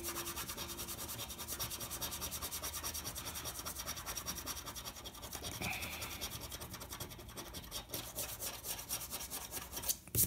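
A coin scraped quickly back and forth over the scratch-off coating of a lottery ticket, an even, fast rasping rhythm. The strokes thin out near the end, followed by one sharp knock.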